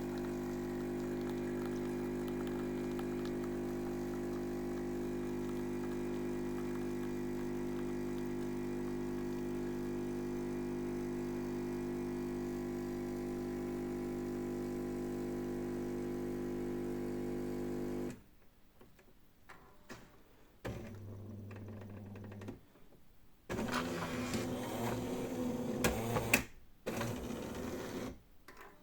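Jura J8 Twin automatic coffee machine running with a steady hum while it brews a coffee crema. The hum cuts off abruptly about two-thirds of the way through, and a few short, irregular clattering sounds follow near the end.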